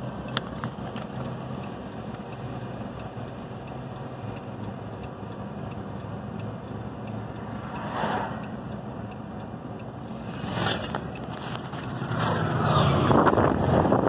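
Steady vehicle engine drone and road noise heard from inside a car crawling behind a farm tractor towing a baler. Two brief swells of noise come about 8 and 10 seconds in, and a louder rushing noise builds near the end.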